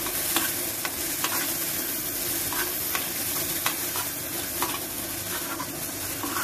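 A steel spoon stirring grated raw mango and sugar in a metal frying pan, scraping and clicking against the pan repeatedly, over a steady sizzle of oil.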